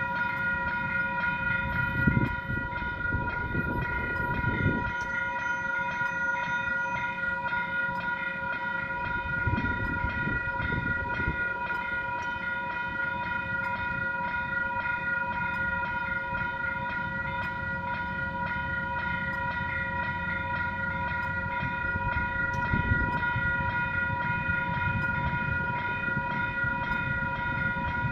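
Level crossing warning bells ringing steadily over the low rumble of a freight train's wagons rolling through the crossing. Louder clanks come a few times as wagons pass over the rail joints.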